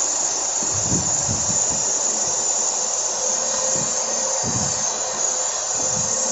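Mitsubishi 4G63 inline-four engine idling under an open hood with a steady hiss, after an aluminum plate was fitted at the MAP sensor entry to cure its hunting idle; the idle has begun to settle.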